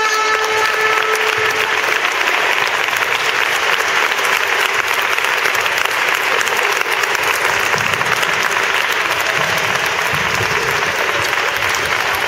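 Audience applauding steadily, with a held musical note fading out in the first second or two.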